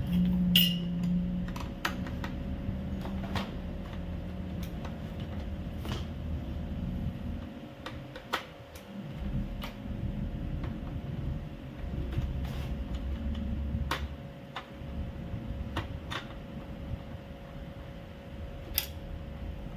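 Scattered light clicks and taps of a screwdriver against an Epson L3210 inkjet printer's plastic parts and frame as the printer is taken apart, over a steady faint hum.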